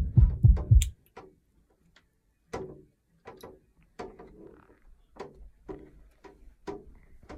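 Music with a pulsing bass beat stops about a second in. After it come a series of soft, short knocks and clicks, irregular at first and then roughly two a second.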